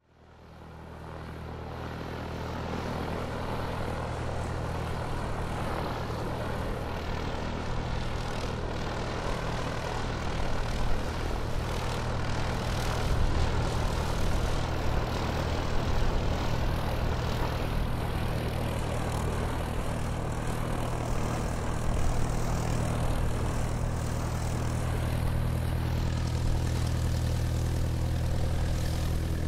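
Airplane engines running steadily, fading in over the first few seconds and growing slowly louder, with a deep hum and a broad hiss.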